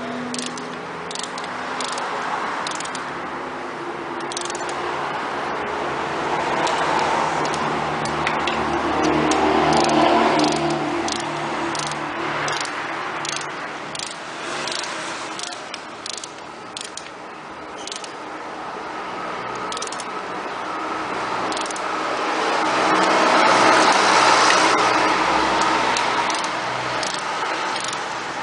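Scattered metallic clicks of a ratchet and hand tools as spark plugs are tightened with a torque wrench, over a steady engine-like drone that swells louder twice.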